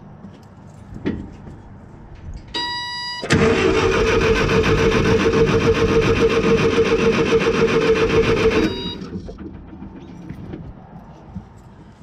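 A short high beep, then the Case 1835B skid steer's engine is cranked over by its starter for about five seconds with a steady rhythm and stops without catching. It is a cranking test of the ignition with a spark tester fitted.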